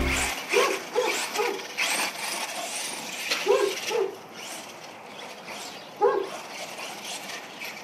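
A dog barking in short groups: three barks, then two, then a single bark. A few faint clicks are heard between them.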